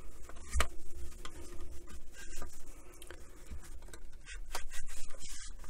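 A wet wipe rubbing and scrubbing along the carrying handle and case of a Roberts RIC1 radio, in irregular strokes with small clicks and one sharper knock about half a second in. The rubbing gets busier near the end.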